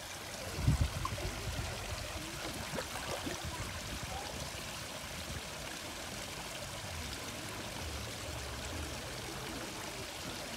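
Small rock waterfall splashing steadily into a garden pond, with a low thump about a second in.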